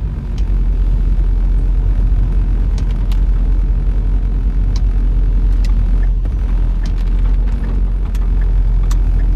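Car driving, heard from inside the cabin: a steady low rumble of engine and road noise, with a few scattered light ticks.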